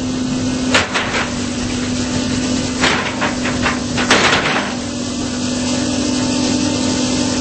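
Case CX225SR hydraulic excavator running, its Isuzu diesel engine holding a steady hum. Several short, sharp clanking noises come from the machine working, four of them in the first half.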